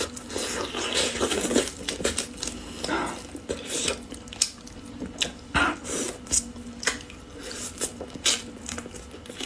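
Close-miked eating of braised duck legs: meat torn off the bone by hand and bones sucked and chewed, with many short sharp clicks.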